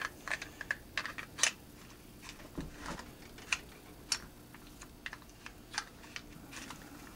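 Grendel P12 pistol's slide being worked on its plastic frame during reassembly, making irregular light clicks and clacks of steel against polymer.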